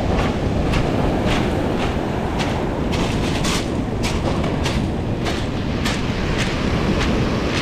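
Footsteps crunching on beach pebbles, about two steps a second, over a steady rumble of wind on the microphone and breaking surf.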